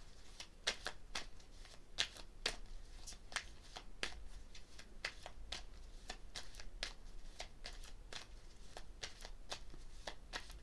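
A tarot deck being shuffled by hand, with a run of short, crisp card slaps, about two or three a second, while shuffling to draw a clarifier card.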